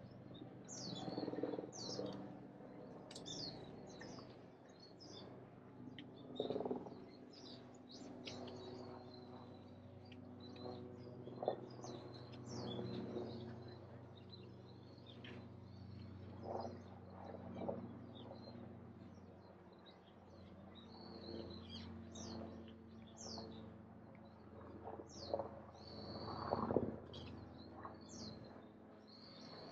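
Small birds chirping and calling over and over in short high notes, some rising and some falling, over a low steady background hum.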